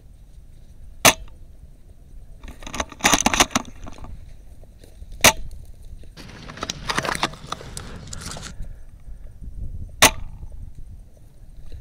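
Upgraded Tokyo Marui VSR-10, a spring-powered bolt-action airsoft sniper rifle, firing three single shots, each a sharp crack, about four to five seconds apart, with clusters of clicking and rustling between them.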